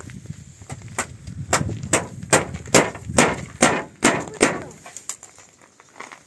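Hammer striking nails into wooden roof planks: a steady run of about nine sharp blows, roughly two and a half a second, with low knocking of the boards underneath.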